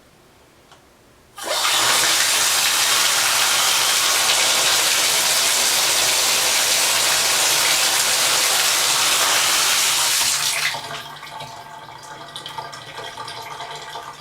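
Shower water turned on suddenly, running hard for about nine seconds, then dropping to a lighter, splashier flow near the end.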